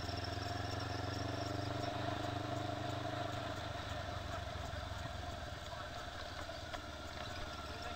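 Motorcycle engine running while riding along a street, a steady low drone over road and wind noise; the drone eases off about halfway through.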